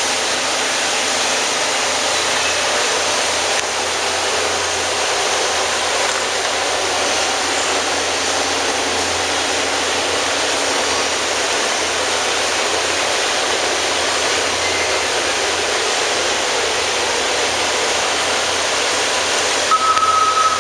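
Steady rushing noise of a machine shop, with a short high beep about a second before the end.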